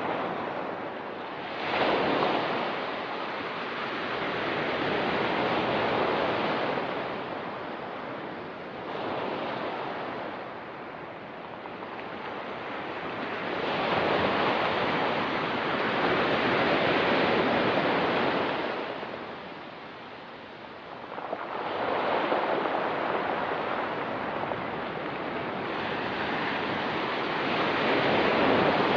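Ocean surf breaking and washing on a rocky pebble beach, the rush of water swelling and easing off in about five surges, each a few seconds long.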